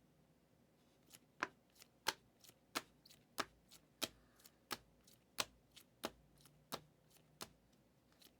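Trading cards being handled one after another on a table, a run of sharp, faint clicks about three a second, alternating louder and softer, starting about a second in and stopping near the end.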